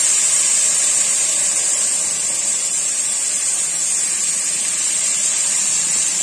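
Hot sugar syrup hitting semolina toasted in butter, boiling up in the pan with a loud, steady hissing sizzle.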